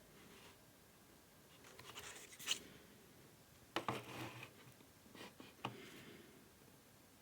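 Packaging being handled and opened by hand: scratchy rustling and crinkling about two seconds in, then a few sharp clicks and taps.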